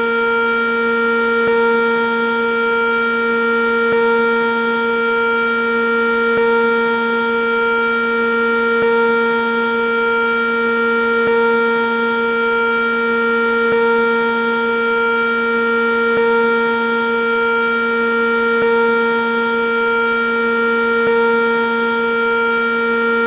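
Sentry 3V8 electromechanical siren running at full speed, holding one steady tone whose loudness swells and fades about every two and a half seconds.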